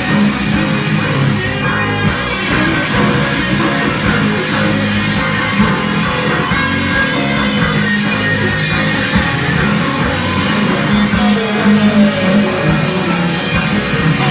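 Live psychedelic hard-rock band playing an instrumental passage: distorted electric guitar over bass guitar and drums.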